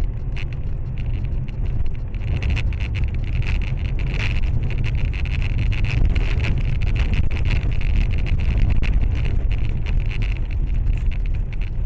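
Steady road noise inside a car driving on a snow-covered highway: a heavy low rumble of tyres and engine with a hiss over it and many small crackles throughout.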